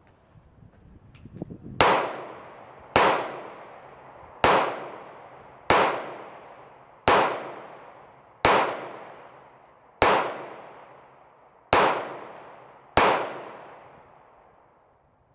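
Smith & Wesson M&P 2.0 pistol fired nine times in slow, deliberate succession, about one shot every second and a half, each shot ringing out in a long echo under a metal shed roof.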